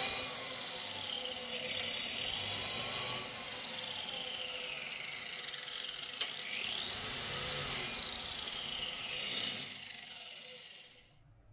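A power tool cutting into a masonry wall, its pitch rising and falling as the load changes, fading out near the end.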